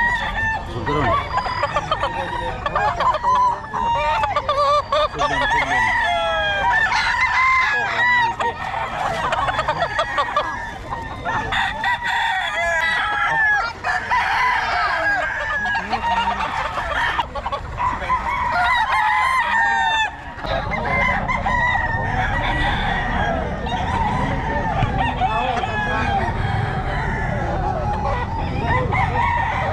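Many gamecocks crowing over one another in a continuous chorus of overlapping crows and clucks. A low rumble joins about two-thirds of the way through.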